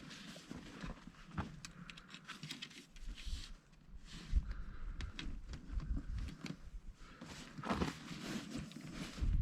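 Handling noises from setting up a canvas tent: fabric rustling with light clicks and knocks from the tent poles and fittings.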